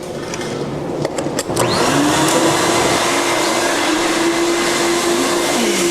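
Ruwac WS2320 industrial vacuum running: a few clicks about a second in, then the motor rises in pitch and settles into a steady whine over a loud rush of suction.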